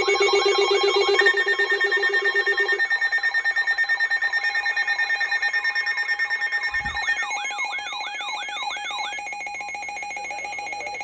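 Several electronic emergency alert tones sounding together: steady tones at different pitches with a fast pulsing beat, a low tone that drops out about three seconds in, and quick rising-and-falling warbles early on and again past the middle. A brief low thud comes about seven seconds in.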